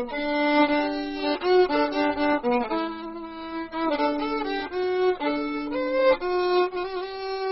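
Solo violin playing a melody of held notes, moving from one note to the next every half second to a second, with no other instruments.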